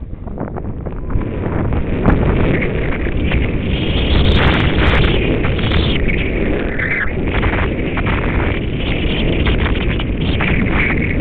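Wind buffeting a helmet camera's microphone during a snowboard descent, a continuous loud rumble, with the snowboard hissing and scraping through soft snow, getting stronger about four seconds in.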